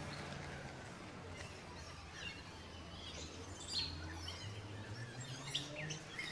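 Quiet outdoor background: a steady low hum with a few faint, short high chirps.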